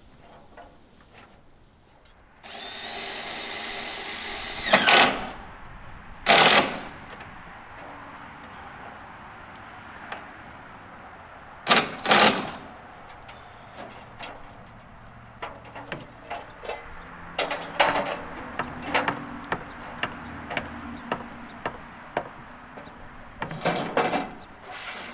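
A handheld power tool runs steadily for about two seconds, then in short loud bursts: two close together, two more about halfway through, and one near the end. Lighter taps and knocks fill the gaps in the second half.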